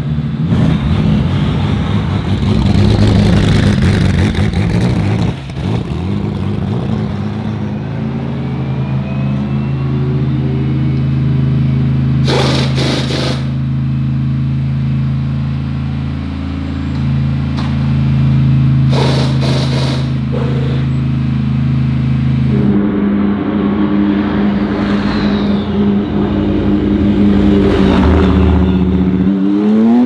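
BMW M4 GT3 race car's twin-turbo straight-six idling steadily, then rolling off at low revs, with the engine note climbing near the end as it accelerates. Two short hissing bursts of noise cut in partway through.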